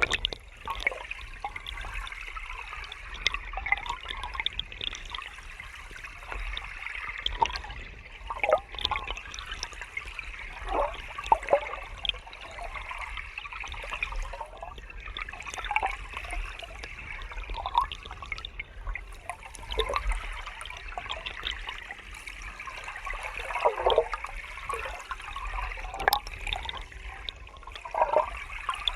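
River water running over rocks: a steady rushing with constant small splashes and gurgles, and a low rumble underneath.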